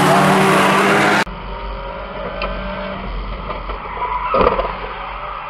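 Banger race cars' engines running loud at trackside. About a second in, the sound cuts to an in-car camera inside a banger: a low engine drone and rumble, with a loud knock about four seconds later.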